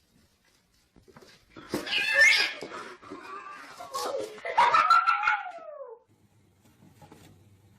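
A cat yowling: a rough, noisy cry about two seconds in, then a long drawn-out call that falls in pitch and stops about six seconds in.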